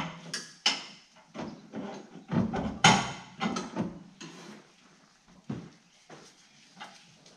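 Irregular metallic clicks, knocks and clatter of hands working a new brake master cylinder into place against the firewall. The knocks come thick and fast for about four seconds, then only a few scattered taps.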